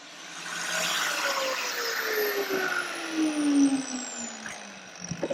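Angle grinder winding down after being switched off, its motor whine falling steadily in pitch over about four seconds.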